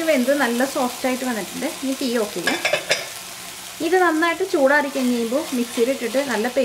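Wooden spatula stirring and scraping a coconut-and-onion masala frying in oil in a pot, in repeated strokes over a light sizzle, with a short lull about three seconds in.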